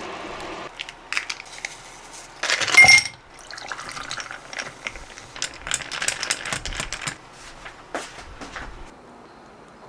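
Kitchen handling sounds: dishes and utensils clinking and knocking, with a short rushing burst, like a pour, about two and a half seconds in. A steady mechanical whirr stops just under a second in.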